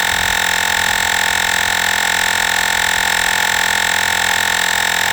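Olgeo M7 portable battery-powered air compressor running steadily while inflating a car tire, a constant humming whine with no change in pitch.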